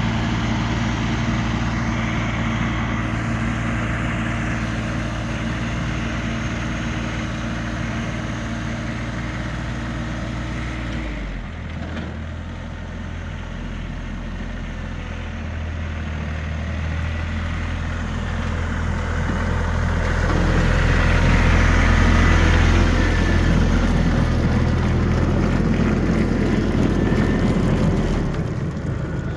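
Tractor engine running steadily. Its note changes suddenly about eleven seconds in, and it grows louder for a while around twenty seconds in.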